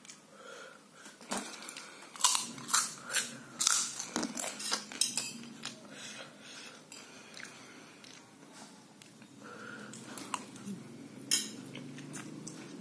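A fork clinking and scraping against a dish as noodles are gathered, a quick run of sharp clicks in the first half. Quieter chewing follows, with one more clink near the end.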